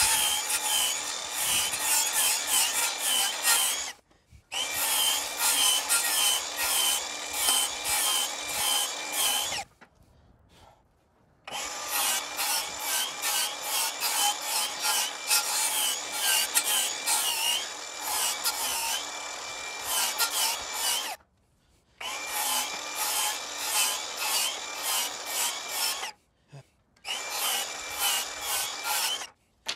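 Hercules cordless circular saw running and cutting through pine boards, played back sped up four times so it sounds high and fast. The cut stops and restarts several times, with short silences between cuts. The saw handles the pine without trouble.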